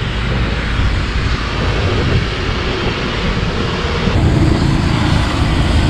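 Wind rumbling on the microphone of a camera on a moving bicycle, mixed with road traffic noise. A steady, loud, noisy rumble with no breaks.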